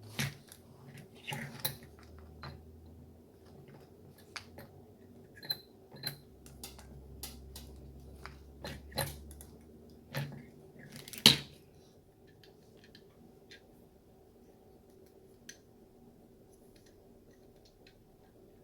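Scattered clicks and knocks of hard parts being handled and fitted together as a button-making machine is assembled by hand. The loudest is a sharp knock about eleven seconds in.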